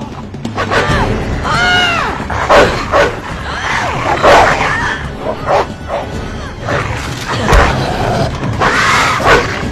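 A dog barking and snarling in a frenzied attack, a rapid series of short sharp cries, with a voice crying out and several thumps mixed in.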